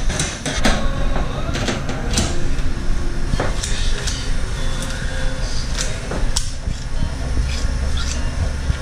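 Fish shears snipping through a John Dory's spiny fins on a stainless-steel counter: a scatter of sharp, irregular clicks and knocks of metal on steel, over a steady low hum.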